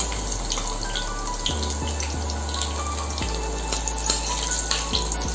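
Slices of kantola (spiny gourd) sizzling as they fry in hot oil in a steel kadhai, with scattered small crackles over a steady hiss.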